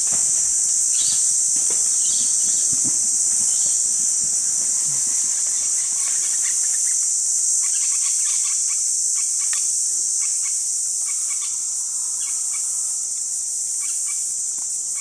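Steady, high-pitched chorus of insects in tropical woodland, with scattered soft crackles and rustles in the first few seconds.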